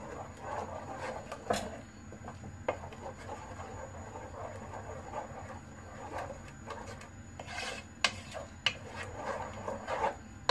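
Wooden spatula stirring and scraping masala gravy around the bottom of a cooking pot, a steady rasping rub with a few sharp clicks scattered through it.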